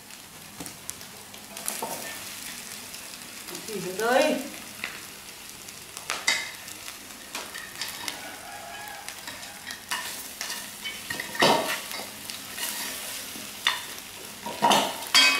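Food sizzling in a small metal pot as it is stirred and turned, utensils clicking and scraping against the pot over a steady frying hiss. A short sliding voice-like sound comes about four seconds in.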